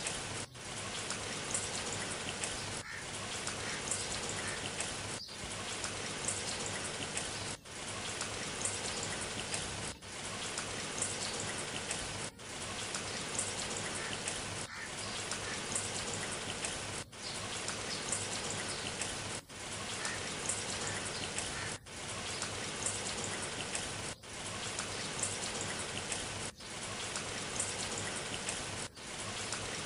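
Steady rain, a short rain recording played in a loop that dips briefly about every two and a half seconds.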